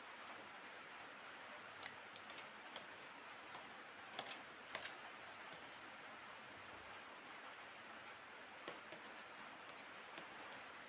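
Quiet eating noises: a scatter of short, sharp clicks from chewing and eating Maggi noodles and egg, bunched in the first half and twice more near the end, over a steady faint hiss.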